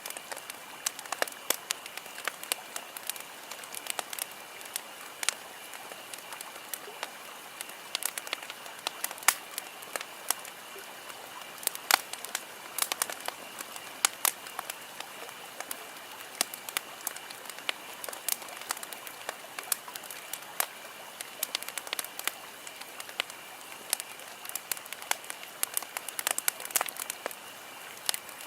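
Campfire crackling: irregular sharp pops and snaps from burning wood over a steady soft hiss, with a faint steady high-pitched tone underneath.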